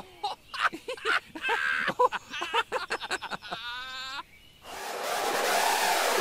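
A man talking briefly and ending on a held pitched note, then a hiss of noise that swells steadily for about a second and a half, building into electronic dance music.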